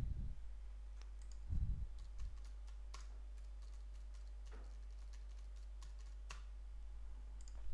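Faint, irregular keystrokes on a computer keyboard as text is typed, with a soft low thump about one and a half seconds in.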